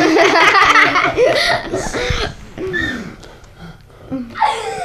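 Children laughing hard, loudest in the first couple of seconds, then dying down before another burst near the end.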